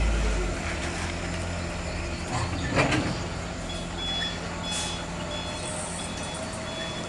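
Heavy truck's diesel engine running low, with a reversing alarm beeping at a steady pace from about four seconds in. A short loud burst of noise comes about three seconds in.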